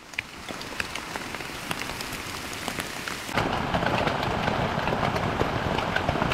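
Steady rain, heard from inside a tent, with scattered sharp drop ticks; about halfway through it turns suddenly louder and denser.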